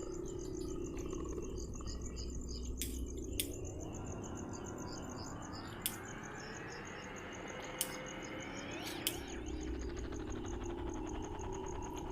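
Night insects chirping in a fast, steady high pulse, with a few sharp clicks and a slowly rising tone through the middle.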